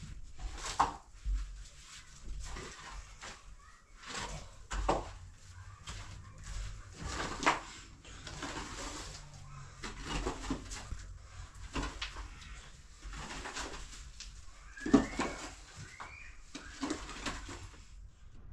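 Wooden levelling rake scraping and dragging loose earth fill across a floor in repeated strokes, one every second or two, with a sharper scrape about three quarters of the way through.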